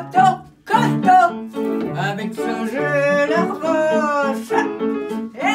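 A woman singing a chanson réaliste over piano chords, with a wavering vibrato on a held note about three seconds in.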